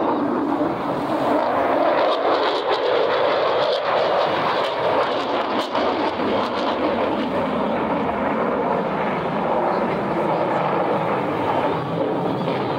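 F-35 Lightning II fighter jet flying past, its single turbofan engine making a loud, continuous rushing jet noise that deepens after about four seconds.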